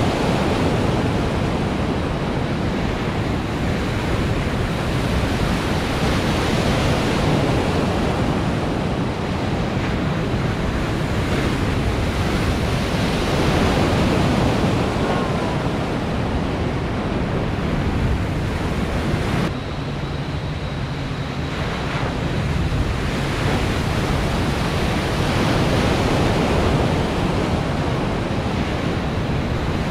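Rushing, churning water of machine-made waves in an artificial surf pool, with wind buffeting the microphone. The noise swells and eases gently, and dips suddenly for a couple of seconds about two-thirds of the way through.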